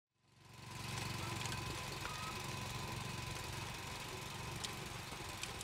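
BCS Model 722 two-wheel tractor's engine running steadily with a fast, even pulse as its rear-tine tiller churns soil. The sound fades in during the first second, with a few faint ticks.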